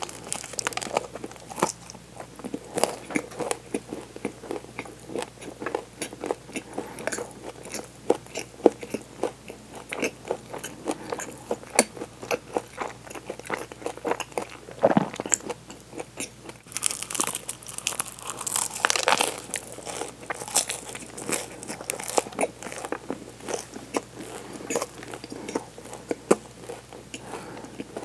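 Close-up eating sounds: a bite into a chocolate-coated pastry, then crunching and chewing as a dense run of small crisp crackles. A louder, busier stretch of crunching comes a little past the middle.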